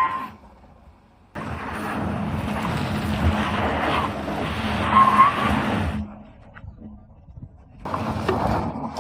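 A car on a steep off-road climb, engine working hard and tyres skidding, heard in abruptly cut stretches: loud from about a second and a half in, breaking off near six seconds, and back again near the end.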